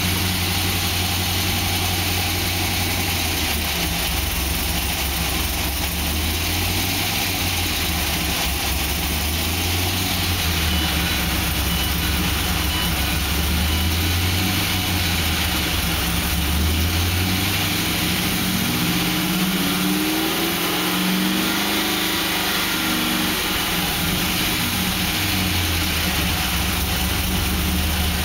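2006 Pontiac GTO's 6.0 L LS2 V8 running at idle, with one brief rise and fall in engine speed about two-thirds of the way through. The owner asks whether its noise is piston slap or something more serious.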